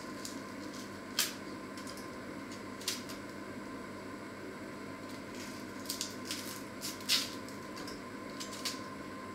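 A small onion being peeled and cut with a knife on a wooden cutting board: a few scattered short crisp clicks and rustles, bunched together about six to seven seconds in, over a steady background hum.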